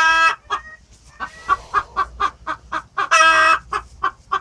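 Silkie chickens clucking rapidly, about four clucks a second, with two loud half-second squawks, one right at the start and another about three seconds in.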